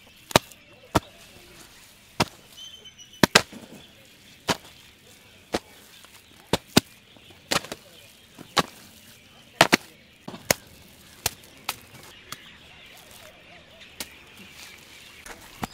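Bare hands slapping and patting moist red clay as it is worked and packed: sharp, irregular slaps about once a second.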